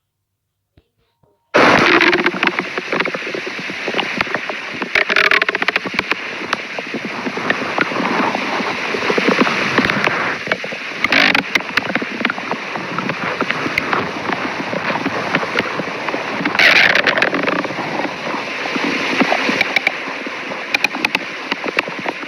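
Stomach growling: a continuous, irregular watery sound that starts suddenly about a second and a half in, with a few louder surges.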